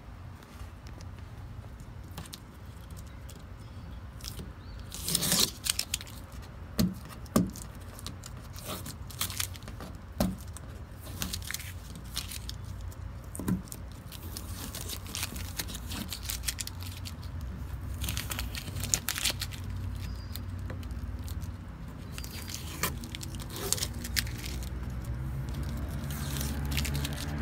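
Masking tape being peeled off a car's painted door panel around the handle, crackling and ripping in short stretches with small clicks and handling knocks, the longest rip about five seconds in.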